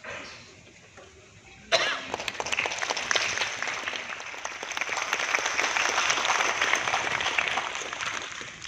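Audience applauding. It starts suddenly about two seconds in and thins out near the end.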